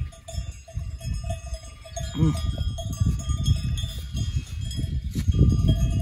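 Bells clinking and ringing steadily, over a low rumbling noise, with a short pitched call that rises and falls about two seconds in.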